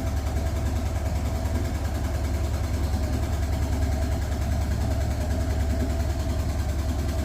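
A machine running steadily, with a deep hum and a fast, even knocking pulse. The knocking is suspected to come from a pulley.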